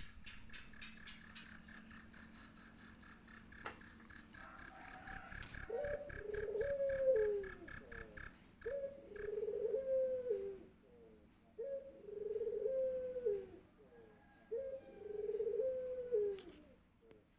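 A cricket chirping in a fast, even train of high pulses, about five a second, growing louder and then cutting off about nine seconds in. From about halfway, a bird's low cooing phrase repeats roughly every three seconds.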